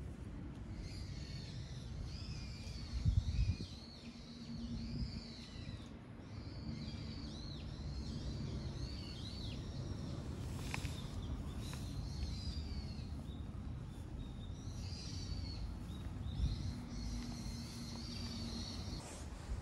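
Small birds chirping and twittering in the background, many short rising and falling notes, over a steady low rumble, with one low thump about three seconds in.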